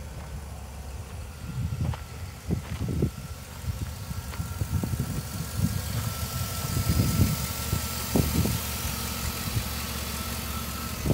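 Chevrolet Vortec gasoline V8 idling, heard from close over the open engine bay, with a faint high whine in the second half.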